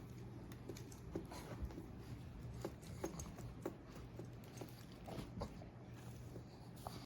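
Slim aluminum Bluetooth number pad being typed on: about a dozen soft, irregular key clicks.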